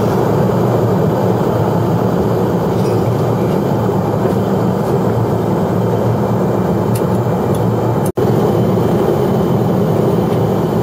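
Steady in-flight cabin noise of an Airbus A380: the rumble of its Engine Alliance GP7200 turbofans and the rush of air past the fuselage, heard through the window seat. The sound cuts out for an instant about eight seconds in.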